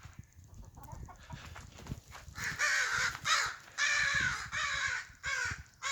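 A rapid series of loud, harsh scolding calls from corvids, starting about two seconds in and repeating roughly twice a second: birds mobbing an owl near their nest.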